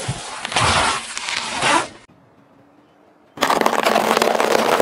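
A car tyre rolls slowly onto and over a football, with about two seconds of noisy pressing and crackling. After a short lull, the tyre crushes a row of dry rusk biscuits, a dense run of crunching and cracking.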